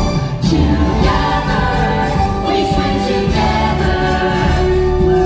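A group of voices singing together over recorded musical accompaniment, a stage-show musical number.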